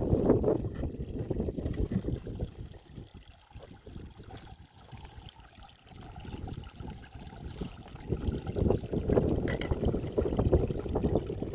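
Wind buffeting the microphone: an uneven low rumble that dies down through the middle and picks up again near the end.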